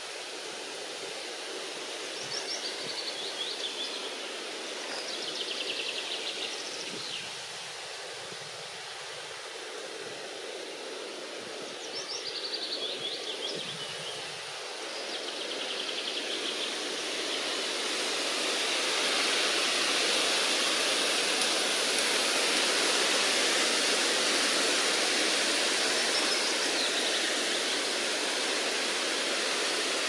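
Steady rush of running water, growing louder about halfway through, with a small songbird singing short descending trills several times over it.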